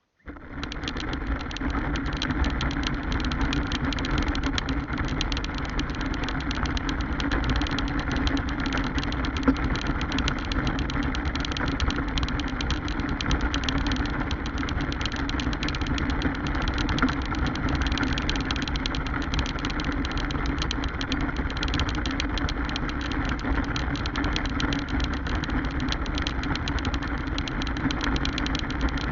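Battery-powered RC car's electric motor and drivetrain running steadily, a dense buzzing mechanical noise.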